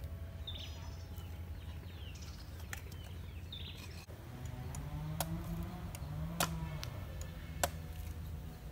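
Birds chirping over a low hum, then a cleaver chopping into a green coconut on a wooden block: three sharp chops a little over a second apart.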